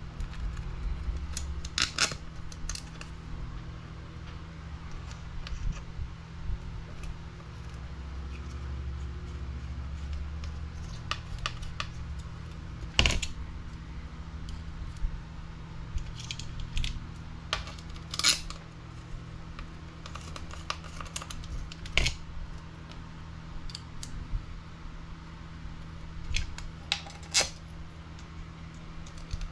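Small screws, hex driver and hard plastic and carbon parts clicking and tapping against the buggy's chassis plate as screws are started by hand. The clicks come irregularly, a few louder knocks among them, over a steady low hum.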